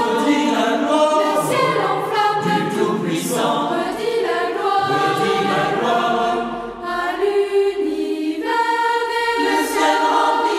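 Background music: a group of voices singing in harmony, holding chords that change every second or so.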